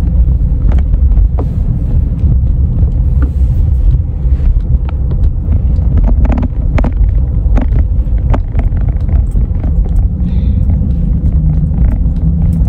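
Car driving, heard from inside the cabin: a steady low road and engine rumble, with scattered small clicks.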